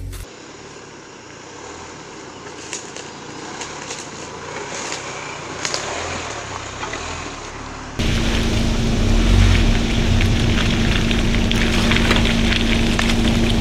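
Ford Bronco Sport small SUV driving over a dirt forest trail: tyres crunching with scattered clicks of twigs and stones. About eight seconds in it turns much louder, a steady engine drone with a low rumble as the SUV climbs the rutted trail.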